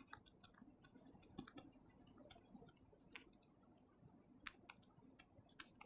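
Near silence broken by faint, irregular small clicks, around fifteen scattered through a few seconds.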